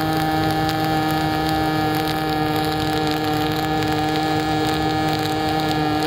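Pulsed MIG welding arc from an Everlast PowerMIG 253 DPi in pulse mode at 200 amps, running .035 wire under 92/8 argon-CO2 with the voltage trim at −3 to shorten the arc. The arc gives a steady, even buzz at a fixed pitch with a crackling hiss underneath.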